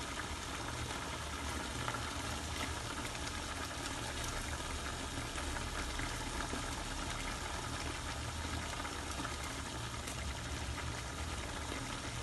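Chicken curry in coconut milk boiling in a pan: a steady bubbling with many small pops and crackles, over a low steady hum.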